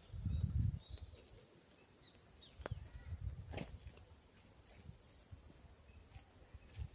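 Forest ambience: a steady high-pitched insect drone with scattered short bird chirps over it. A low rumble rises in the first second and again around three seconds in, with a couple of sharp clicks.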